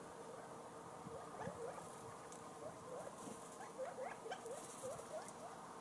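A quick run of short, rising squeaky animal calls, several a second and busiest in the middle, over a faint steady hum.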